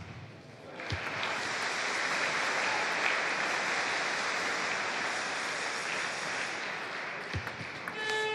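Crowd applauding in an indoor sports hall. It starts about a second in, holds steadily and eases off near the end. A couple of short thuds and a brief high squeak come near the end.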